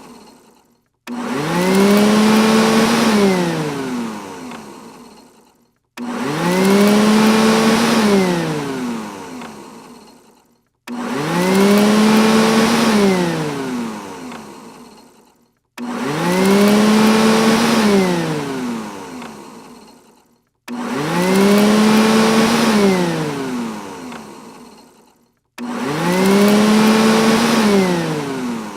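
Robot vacuum cleaner's motor starting up abruptly, rising in pitch, holding briefly, then winding down and fading out. The same cycle repeats six times, about every five seconds.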